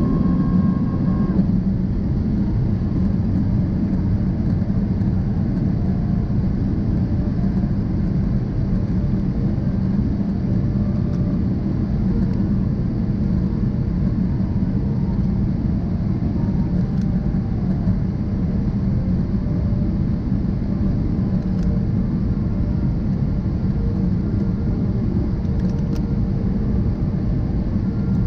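Steady cabin noise of a jet airliner in flight on its descent: an even rumble of engines and rushing air. A faint high tone stops about a second and a half in.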